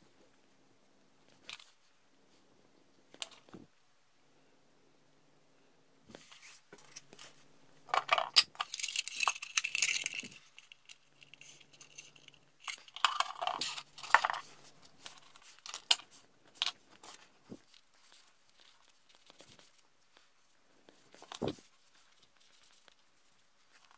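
Hands handling and fitting small 3D-printed plastic boat parts: scattered light clicks and taps, with two longer spells of scraping and rubbing, one about a third of the way in and one just past the middle.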